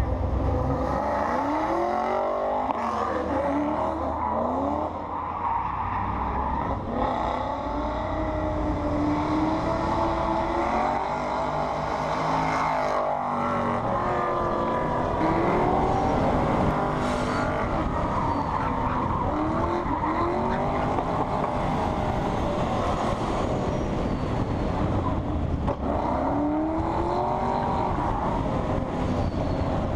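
Car engines revving up and falling back again and again under a steady rumble of wind on the microphone.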